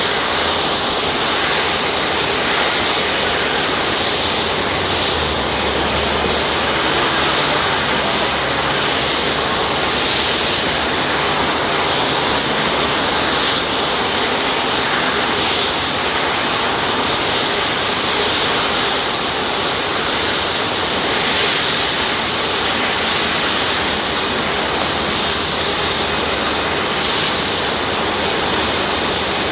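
Steady jet-engine noise from an Airbus A340-600's four Rolls-Royce Trent 500 turbofans at taxi power as the airliner taxis.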